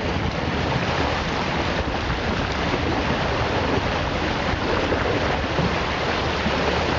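Steady rush of water along a sailboat's hull as its bow cuts through the sea under motor, with wind on the microphone.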